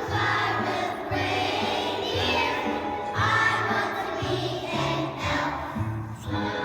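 Young children singing together as a choir, a Christmas song about being an elf, over instrumental accompaniment with a bass line stepping between held notes.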